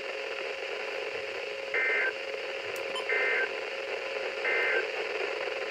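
Emergency Alert System End of Message signal over NOAA Weather Radio: three short warbling two-tone data bursts about 1.4 seconds apart, each about a third of a second long, over steady radio hiss. The bursts are the SAME 'NNNN' code that closes the alert message.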